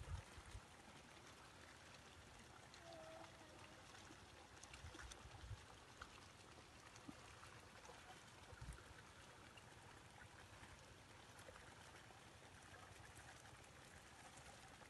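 Near silence: faint outdoor background hiss with a few soft low thumps.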